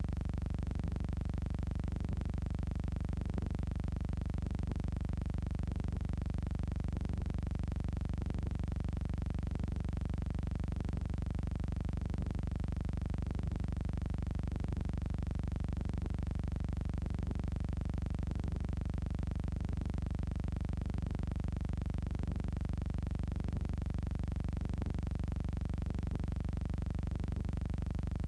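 Steady low electrical hum with a faint hiss behind it, unchanging throughout, with no speech or music.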